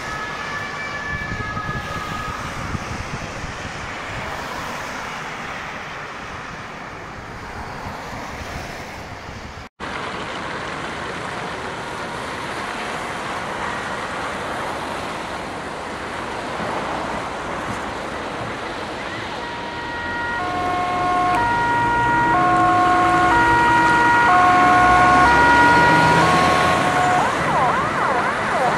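Emergency vehicle two-tone sirens over steady road traffic. In the second half an ambulance's two-tone siren grows louder, switching between a high and a low note about twice a second, then changes to a wailing sweep near the end.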